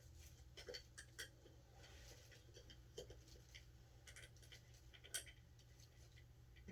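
Faint, scattered clicks and light scrapes of small metal parts being handled during a wheel hub fitting, with one sharper click about five seconds in, over a low steady hum.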